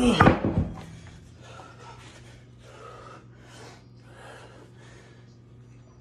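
A man breathing hard after exertion: a loud gasp at the start, then quick, noisy breaths at about two a second.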